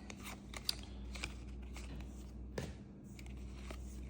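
Trading cards being handled and flipped through by hand: soft, scattered clicks and light rustling.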